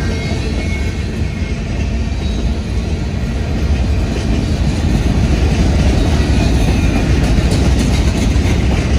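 Freight train boxcars and tank cars rolling past: a steady rumble of steel wheels on rail, growing somewhat louder about halfway through.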